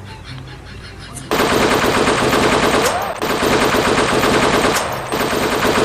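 Machine-gun sound effect. After about a second of quiet it starts up suddenly with long bursts of rapid automatic fire, each about a second and a half long, broken by two short pauses.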